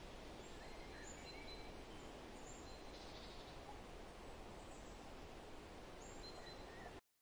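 Faint outdoor ambience: a steady low hiss of background noise with short, high bird chirps scattered through it. It cuts off suddenly near the end.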